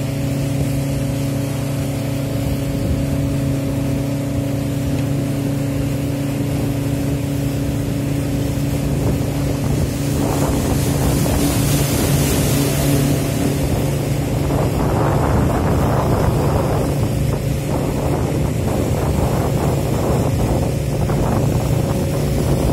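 Speedboat engine running with a steady hum. About halfway through, the rush of water along the hull and wind on the microphone come in over it.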